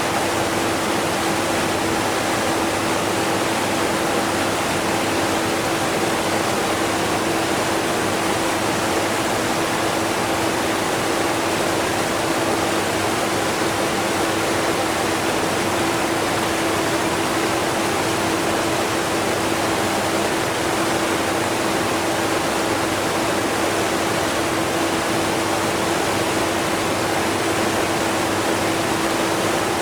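Steady rush of a strong waterfall mixed with the faint, even hum of a vacuum cleaner, which sits as a low steady tone under the water noise.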